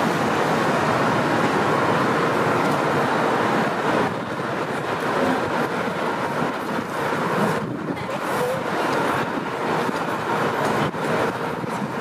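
Steady city street traffic noise, a dense rumble and hiss of vehicles, a little louder for the first few seconds.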